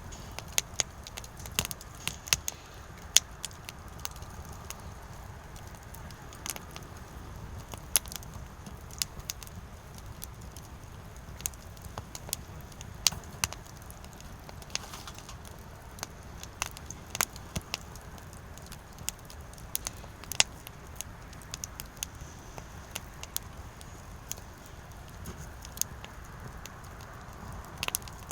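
Firewood burning, with irregular sharp crackles and pops over a steady low rush of flame.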